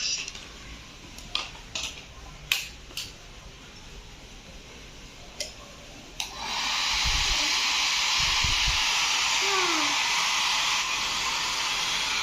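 A few sharp clicks, then about six seconds in a Syska 1000 W hair dryer clicks on and runs steadily, blowing air.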